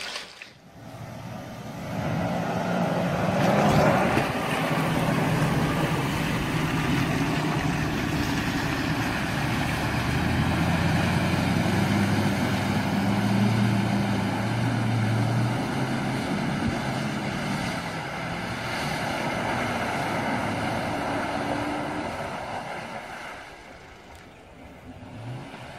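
Lexus LX 470 SUV's V8 engine running under load as it wades through deep water, with water sloshing and rushing around the body and wheels; the sound fades near the end.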